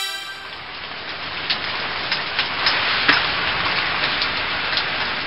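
Steady rain falling, a dense even hiss with scattered louder drops ticking on a surface.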